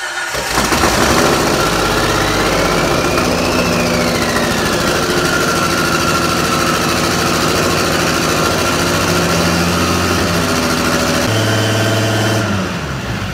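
Turbocharged Jeep Wrangler engine running on its first start-up at a high idle, caused by intake manifold openings left unplugged. A high whine rises and falls a couple of seconds in, then holds steady, and the engine dies away near the end.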